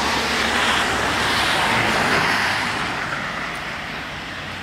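A car passing on a wet road, its tyres hissing on the water, fading away about three seconds in.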